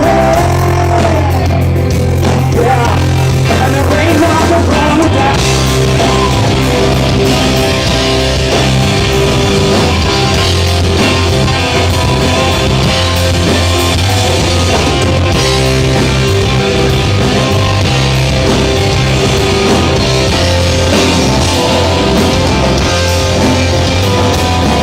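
Live rock band playing an instrumental passage with electric guitar lines over a steady bass.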